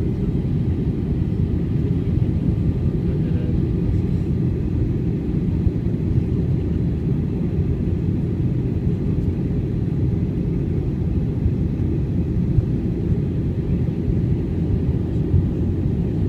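Steady low rumble of airliner cabin noise in flight, the engines and rushing air heard from inside the plane.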